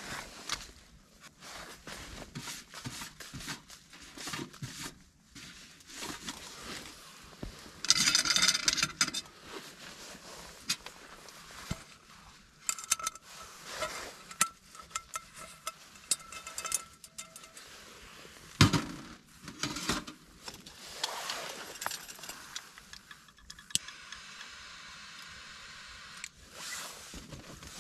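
A metal bowl is handled and set down on a metal tent stove: irregular scrapes, clinks and knocks of metal on metal, with a louder scraping burst about eight seconds in and a faint ringing after some of the strikes.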